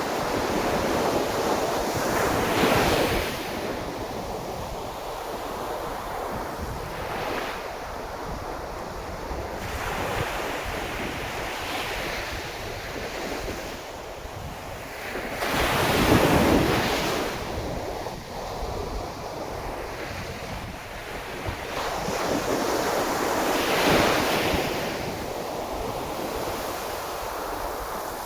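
Sea of Japan waves washing onto the shore in a continuous wash, with big surges at the start, a little past halfway and again near the end, and smaller swells between.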